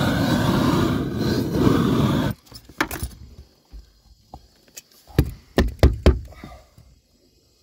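Propane roofing torch running with a steady roar as it heats the SBS membrane lap, cutting off suddenly about two seconds in. Then a handful of knocks as a wooden hand block is pressed and tapped onto the softened membrane to seal the seam, several of them close together near the middle.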